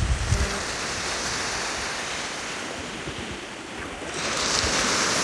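Sea surf washing on a beach, a steady hiss that swells louder about four seconds in, with wind buffeting the microphone in the first moment.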